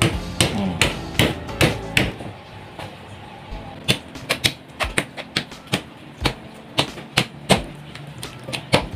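Handheld needle meat tenderizer pounded into raw pork belly rind, pricking holes in the skin: a series of sharp taps, about two a second, with a short pause a couple of seconds in.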